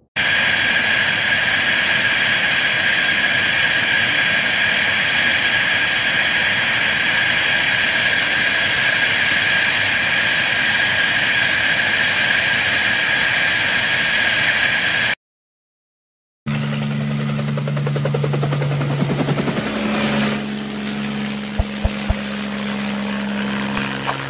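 Jet aircraft engine running with a steady, high whine of several tones over a hiss, cutting off after about fifteen seconds. After a second of silence a lower engine drone with a few steady low tones starts, with a few sharp clicks near the end.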